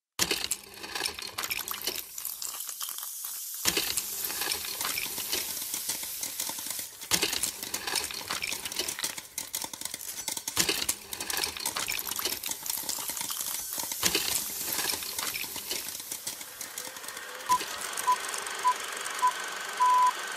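Old-film sound effect: a steady crackle and hiss with scattered pops and clicks. Near the end, five short high beeps about half a second apart, the last held longer, like a film countdown leader.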